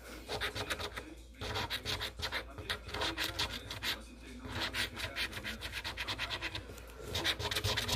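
Scratch-off lottery ticket being scratched: rapid back-and-forth scraping strokes in several quick bursts with short pauses between them.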